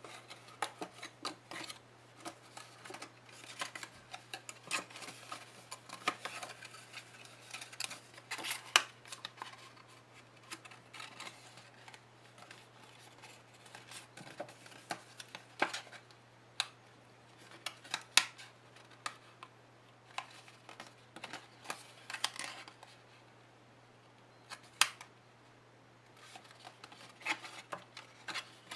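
Cardstock being folded, creased and pressed into a small box by hand: irregular crisp paper rustles and clicks, with a couple of sharp snaps about nine and eighteen seconds in. A steady low electrical hum runs underneath.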